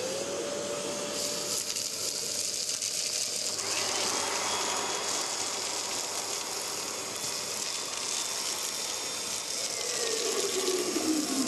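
Kärcher WD3 wet-and-dry vacuum cleaner's motor spinning up to a steady whine and running while it sucks up dust, shingle and stones, which rattle and click through the hose. Near the end the motor whine falls in pitch as it winds down.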